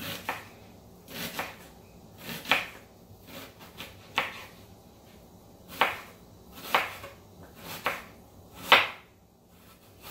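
Kitchen knife slicing through a whole onion and knocking on a wooden cutting board, about nine cuts at roughly one a second, the loudest near the end.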